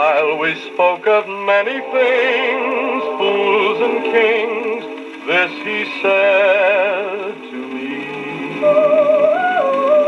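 A 1948 shellac 78 rpm record playing on an HMV 102 wind-up gramophone: a male lead voice with a backing vocal group singing unaccompanied, with no instruments. The notes waver with vibrato, and near the end comes one long held note.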